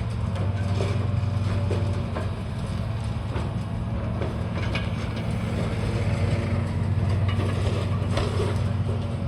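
Heavy demolition machinery with a diesel engine running steadily, and scattered knocks and clanks of metal and debris over it.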